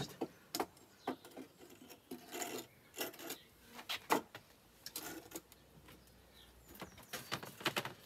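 Cedar beehive parts being handled: irregular light wooden knocks and brief scrapes as the hive stand is set down on paving and the mesh floor is pulled out from a stack of hive boxes.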